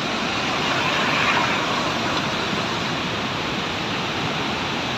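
Fast-flowing Indus River water rushing out below Taunsa Barrage: a steady roar of turbulent water that swells slightly about a second in.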